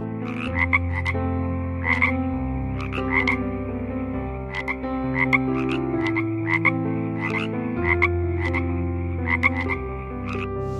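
Short, clicky animal calls in quick groups of two or three, repeating about once a second, over a sustained background of soft music chords that change every second or two.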